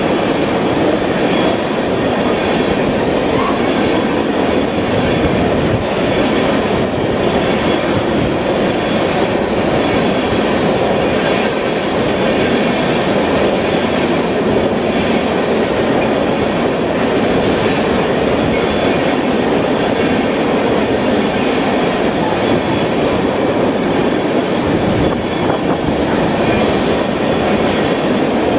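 Freight train of oil tank cars rolling past close by: a loud, steady noise of steel wheels on the rails, with the clickety-clack of the wheels over the rail joints.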